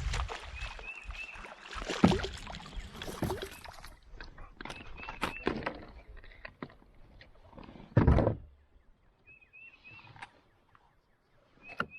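Splashing and hard knocks against a kayak as a hooked smallmouth bass is brought in and landed, the loudest knocks about 2 and 8 seconds in. A bird repeats a short three-note chirp about four times.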